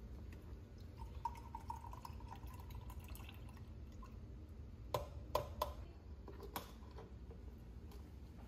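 A thin trickle of liquid dribbling from a small plastic squeeze bottle into a ceramic mug, followed by four sharp clicks and knocks a few seconds later.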